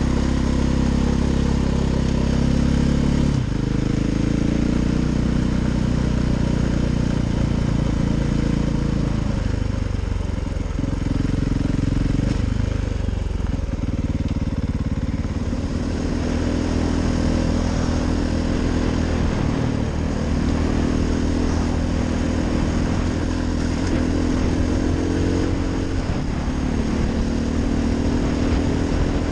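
KTM 500 EXC's single-cylinder four-stroke engine running under way, its note shifting with throttle and gear. The pitch drops about three seconds in, goes rough and uneven for several seconds midway, then settles into a steady run.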